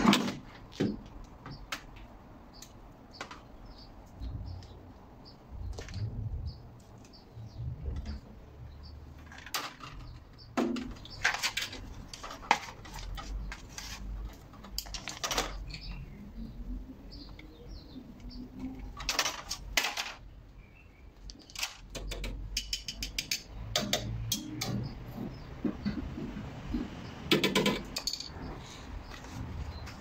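Hand tools working on a fridge's plastic back vent grille: scattered clicks and clatters of a screwdriver against plastic and metal as the grille is unscrewed and lifted off, with pliers and screwdriver knocking on stone paving.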